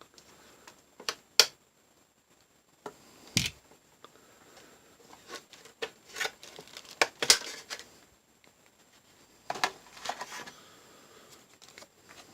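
Irregular clicks and light knocks of small RC buggy parts being handled and set down, among them a 3D-printed steel drive shaft, with short bursts of rustling in between; one knock about three and a half seconds in has a duller thump.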